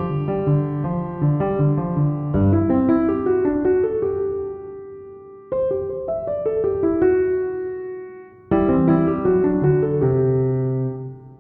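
Background piano music: gentle melodic phrases whose notes fade away, then start again abruptly about every three seconds.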